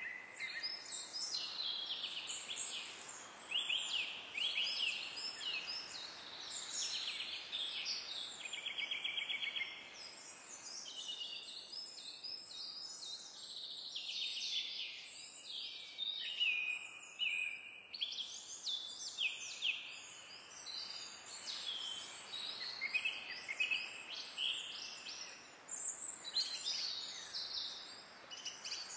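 Many songbirds singing and calling at once: a dense woodland chorus of overlapping chirps and trills, with a rapid trill about eight to nine seconds in.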